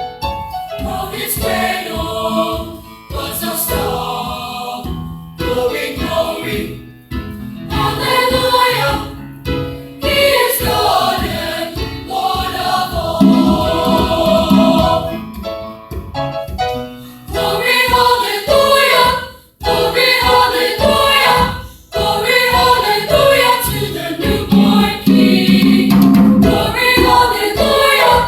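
School chorus singing a Christmas choral song, with brief breaks between phrases.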